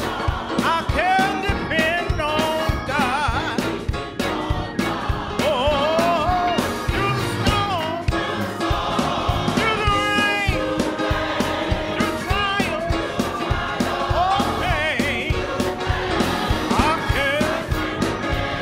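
Gospel choir singing with band accompaniment and a steady beat, a single voice with wide vibrato carrying the melody above the choir.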